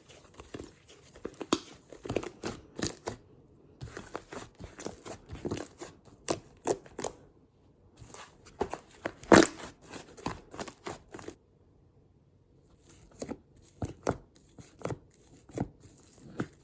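Slime being squished and stretched by hand: irregular crackling clicks and pops, with one loud pop about nine seconds in and a few short silent gaps.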